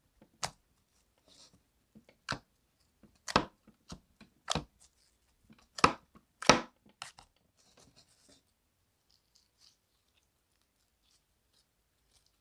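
Clear purple slime with small white beads being pressed and folded by fingers, giving a series of about eight sharp squelching pops from trapped air, the loudest two a little past halfway. Faint crackling follows in the second half.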